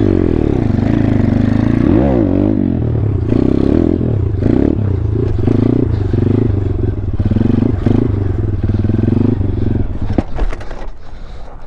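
2019 Thumpstar 140cc pit bike's single-cylinder four-stroke engine revving hard through a long wheelie, the pitch rising and falling as the throttle is worked. Near the end the engine sound drops away and a few sharp knocks follow.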